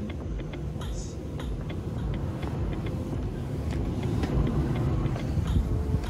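Steady low rumbling noise on the handheld camera's microphone as it is carried, with faint scattered clicks.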